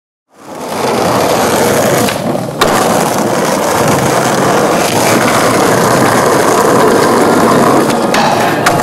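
Skateboard wheels rolling over paving, a loud steady rolling noise that fades in just after the start. A sharp clack sounds about two and a half seconds in, and a few more knocks come near the end.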